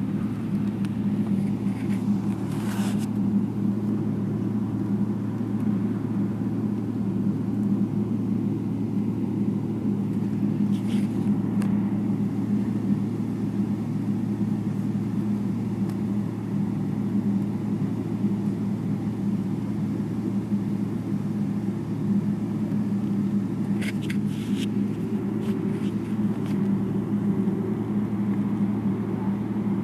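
Jet airliner's engines heard inside the passenger cabin while the plane taxis: a steady low drone with a deep hum. A few brief faint clicks come about 3, 11 and 24 seconds in.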